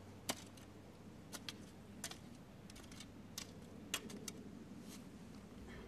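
About ten short, sharp clicks and taps at irregular intervals, over a faint steady hum.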